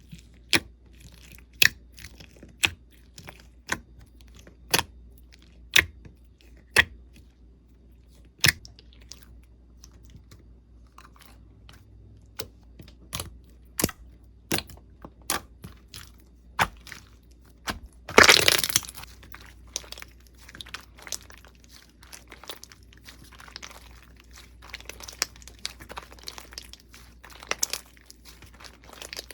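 Slime being squeezed and poked close to the microphone: sharp pops about once a second at first, then denser crackling, with one loud crinkling burst about two-thirds of the way through.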